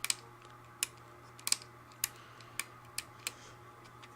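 Sharp plastic clicks, about nine of them at uneven intervals, from handling the on/off switch of a Hoover Convertible upright vacuum and its loose snap-on switch cover.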